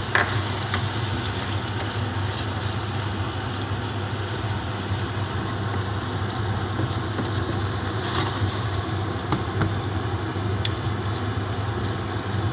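Onion, pepper and tomato sauce simmering and hissing in a pan, over a steady low hum, with a few light clicks.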